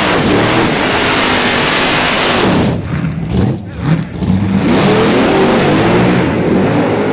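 Drag race cars doing burnouts: engines revving hard with rear tyres spinning, a loud steady blast of noise that dips briefly about three seconds in, then picks up again.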